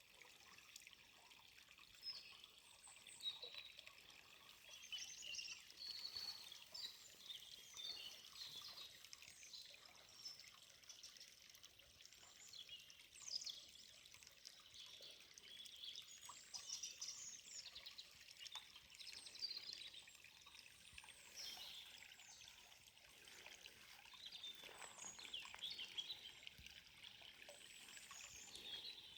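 Many small songbirds chirping and calling in quick, high notes throughout, over the faint trickle of running water from a forest stream.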